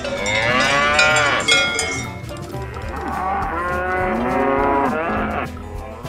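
Cattle mooing: two long, drawn-out calls that rise and fall in pitch, the second lower and longer than the first.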